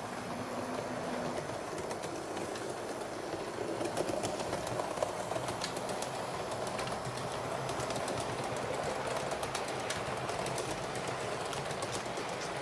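HO-scale model train running along the track: a steady rolling hum of motor and wheels, with frequent light clicks as the wheels pass over rail joints. It grows a little louder over the first few seconds, then holds steady.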